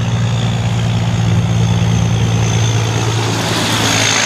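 Diesel engine of a long-nose semi-truck pulling a trailer, running with a steady low drone as it drives past; a rushing hiss of tyres and air comes in near the end as the truck goes by close.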